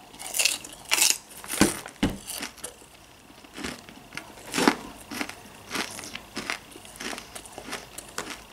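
A big mouthful of birthday-cake-flavoured popcorn being chewed: a run of crisp crunches, about two a second, loudest in the first two seconds.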